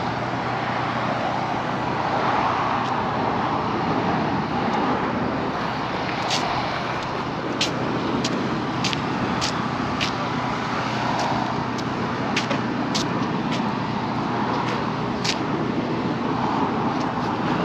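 Steady outdoor rumble with a run of crisp footsteps at a walking pace, about two a second, from about six seconds in until about fifteen.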